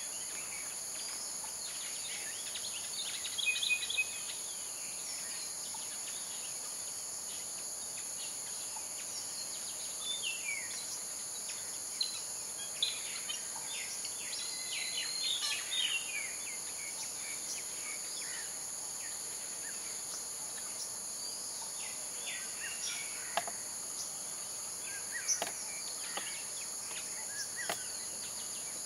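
Steady, high-pitched insect drone, like crickets or cicadas, with birds chirping now and then over it.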